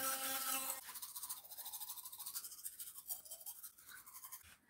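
Electric toothbrush running with a steady hum that stops about a second in, followed by quieter, rapid scratchy scrubbing of bristles on teeth.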